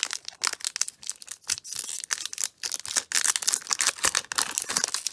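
Paper football trading cards from a 1991 Fleer Ultra pack being handled and flipped through by hand: a rapid run of card flicks and slides with some crinkling.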